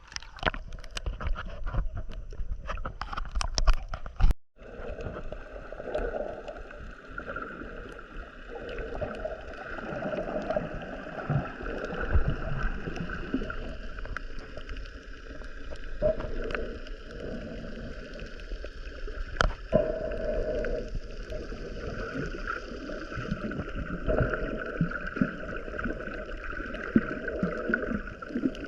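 A boat underway, with water rushing and gurgling against the hull. The sound breaks off sharply about four and a half seconds in and then carries on steadily.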